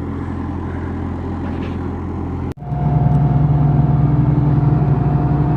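A large engine runs at a steady speed. About two and a half seconds in, the sound cuts off abruptly and a louder engine takes over, running steadily with a constant whine above its hum.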